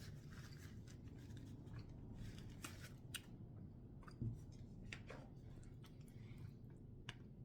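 Faint handling noises: scattered light clicks and rustles of small objects being moved about.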